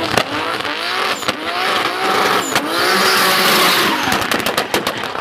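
Turbocharged 2.5-litre BMW E30 drifting: the engine revs up and down repeatedly under tyre squeal, and the squeal is loudest about three seconds in. Near the end comes a quick run of sharp cracks.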